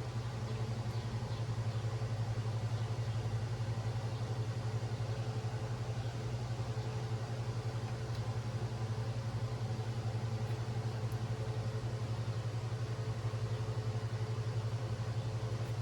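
A steady low mechanical hum with a fast, even flutter that does not change throughout.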